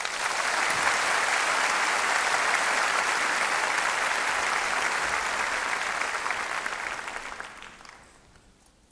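Concert audience applauding, steady at first and then dying away over the last two seconds.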